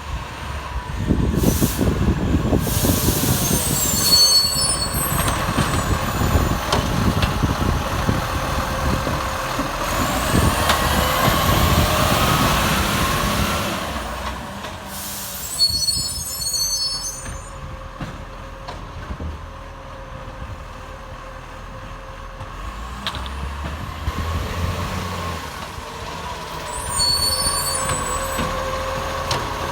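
Acco garbage truck running loud, its engine note roughened by a leaking exhaust, with sharp air-brake hisses about three to five seconds in, mid-way and again near the end. A rising whine sounds twice in between.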